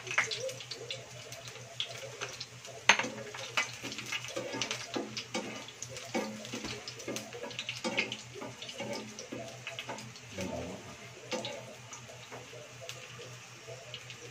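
Sliced garlic sizzling and crackling in hot oil in a nonstick frying pan, with a slotted spatula scraping and tapping against the pan as it is stirred; a sharp click about three seconds in.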